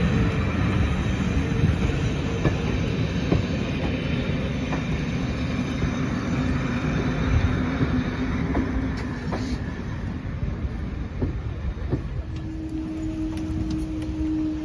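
Railway passenger coaches rolling past over a level crossing: a steady rumble with sharp wheel clicks, fading once the last coach has gone by about nine seconds in. A steady hum starts near the end.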